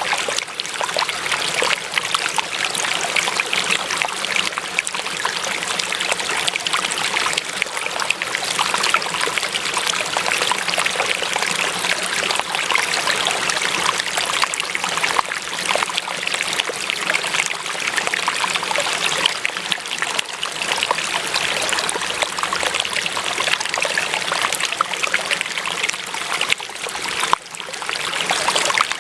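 Running water flowing steadily, an even rushing and trickling, with a brief dip in level near the end.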